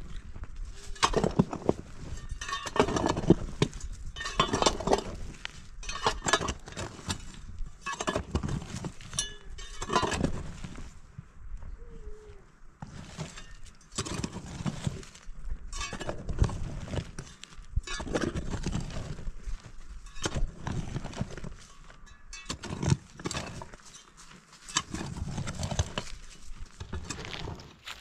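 Long-handled hoe chopping into dry, stony soil and scraping it out of a trench, one stroke every second or two, with clinks of the blade against stones.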